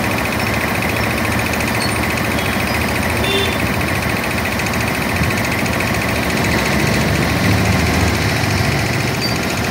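Elgi 7.5 hp twin-cylinder reciprocating air compressor running smoothly under load, its electric motor driving the pump with a steady rapid beat of piston strokes. It is pumping the tank back up after cutting in at about 110 psi, on its way to the roughly 140 psi cut-out.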